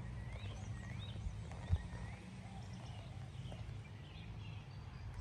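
Outdoor ambience: short, faint bird chirps repeating over a steady low rumble, with one soft thump about a second and a half in.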